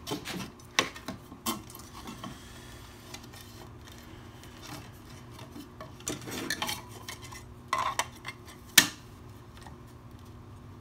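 Scattered knocks and metallic clinks of hand tools handled against a black ABS plastic pipe: a steel rule and combination square being picked up and laid on the pipe, with one sharp clink near the end the loudest.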